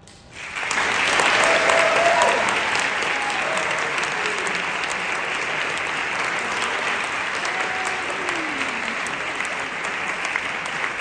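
Audience applause breaking out right after the last note of a song, swelling within the first second and then carrying on steadily. A few voices call out over the clapping.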